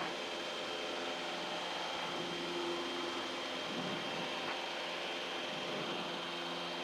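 Cessna 150's four-cylinder Continental O-200 engine and propeller heard from inside the cabin, running steadily at full power in the climb just after takeoff.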